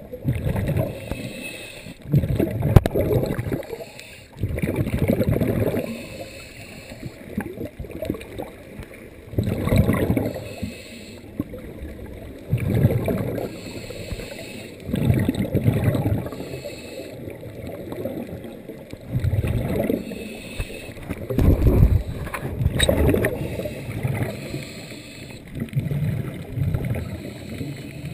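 Scuba regulator exhaust bubbles heard underwater: muffled, low bubbling rushes about a second long, coming every two to four seconds with the diver's breathing, and a faint hiss between them.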